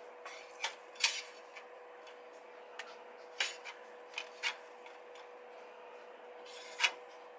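Plastic spatula scraping and tapping on a nonstick frying pan and a disposable plate as scrambled egg whites are scooped out. It comes as a string of short, separate scrapes and clicks over a faint steady hum.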